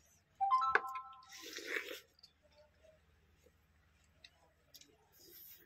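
A short high squeak, then a wet bite and slurp of ripe watermelon about a second and a half in, followed by quieter chewing.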